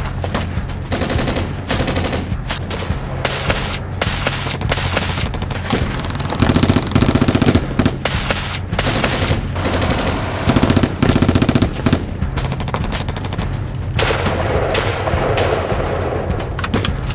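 Gunfire in a firefight: repeated bursts of rapid automatic fire mixed with single shots. The fastest, loudest bursts come about six to seven and a half seconds in and again around eleven seconds.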